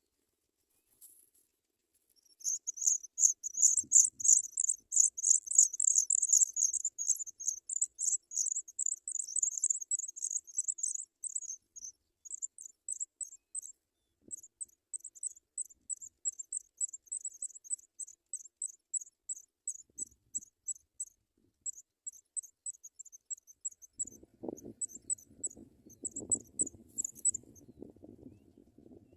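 African pipit nestlings begging, a fast run of thin, high-pitched cheeps that starts suddenly, is loudest for the first several seconds, then thins into shorter runs with pauses. A low rustling joins near the end.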